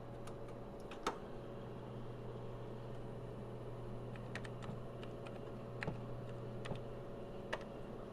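Keys of a TRS-80 Model 12 keyboard, refitted with replacement foam key pads, being pressed one at a time: about ten separate clicky keystrokes at an uneven pace, over the steady low hum of the running computer.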